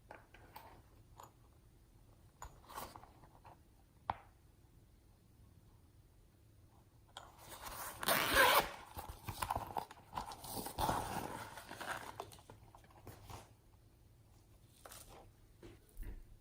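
Hands working slime: scattered sticky clicks and snaps, then a dense crackling, crunching stretch from about seven to twelve seconds in.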